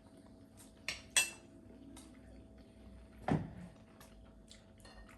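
Cutlery clinking against plates: two sharp ringing clinks about a second in, a duller knock a little after three seconds, and light taps in between.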